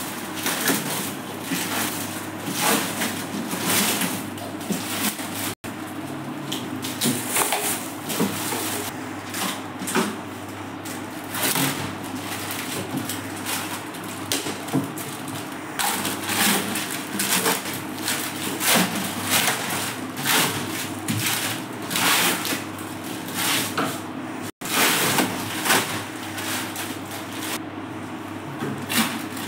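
Protective plastic film being peeled and torn off aluminium panels and shelves: irregular crinkling and crackling rustles, over a steady low hum.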